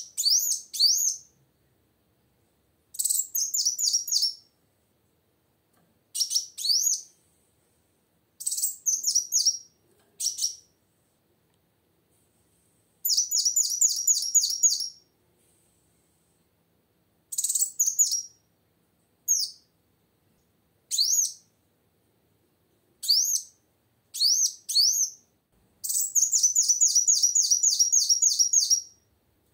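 Female kolibri wulung sunbird singing: repeated phrases of rapid, high-pitched chirping notes, each a second or two long with brief pauses between them. Near the end a longer, unbroken run of quick notes.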